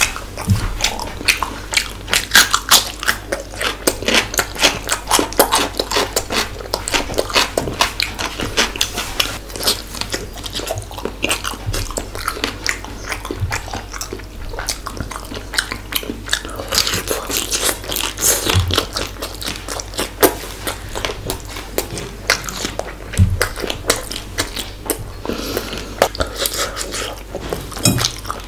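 Close-miked chewing and biting of a person eating fish masala and chicken pulao by hand, with dense irregular clicks and crunches from the mouth.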